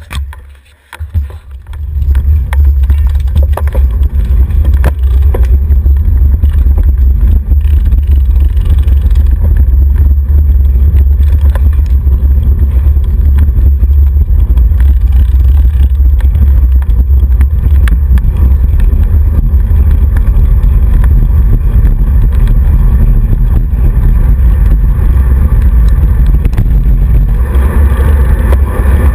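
Heavy wind buffeting on the microphone of a handlebar-mounted camera on a moving road bike, a loud low rumble that builds over the first two seconds as the bike picks up speed and then holds steady. A few light clicks come near the start.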